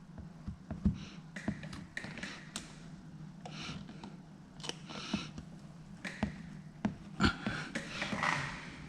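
Scattered light taps and clicks with a few short swishes from hands working wet paint protection film against a car's plastic bumper, over a steady low hum.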